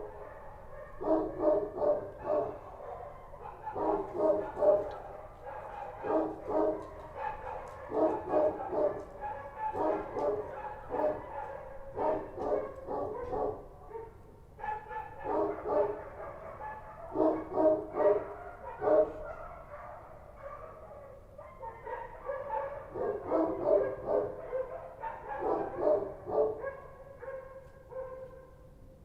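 Street dogs barking in repeated volleys of several quick barks, a volley every second or two, with a couple of short lulls.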